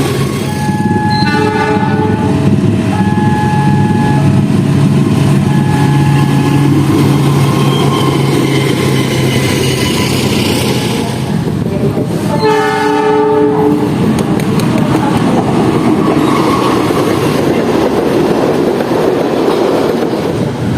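Indonesian diesel locomotive's melodic multi-tone horn sounding the semboyan 35 signal: five alternating high and low notes over the engine's steady hum, then one more fuller blast about halfway through. The train then rumbles past with wheels clattering on the rail joints.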